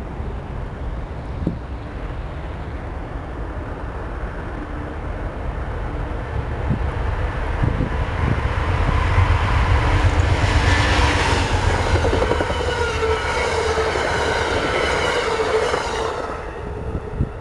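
Amtrak diesel passenger train approaching and passing at speed. The low rumble of the locomotive and wheels grows louder and peaks as it goes by, and its tones drop in pitch as it passes.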